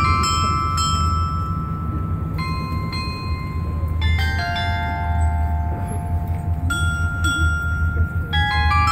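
Bells of a glockenspiel clock tower playing a tune: groups of struck bell notes every couple of seconds, each note ringing on, with a steady low rumble underneath.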